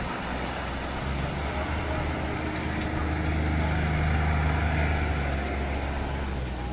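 A motor vehicle's engine running close by over steady outdoor noise. It swells through the middle and eases off near the end.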